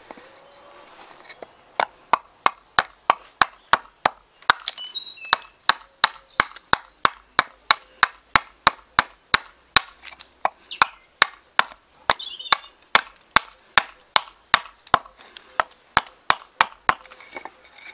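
Small bushcraft axe hewing a spoon blank of seasoned alder: a long run of quick, sharp strikes, about three a second. The dry, seasoned wood is hard to cut.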